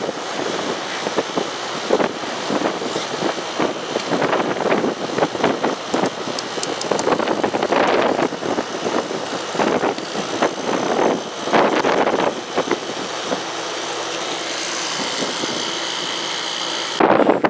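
Dometic rooftop RV air conditioner running with its fan and compressor on: a steady hum under a rough noisy haze, broken by irregular crackles and bumps close to the microphone.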